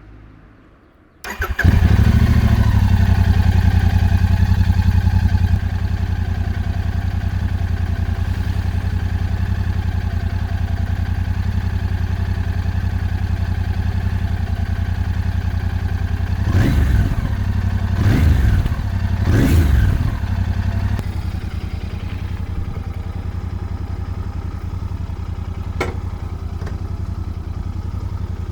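Royal Enfield Continental GT 650's parallel-twin engine on its stock exhaust starting about a second and a half in and running at a raised idle for a few seconds. It then settles to a steady idle, with three short throttle blips in the middle.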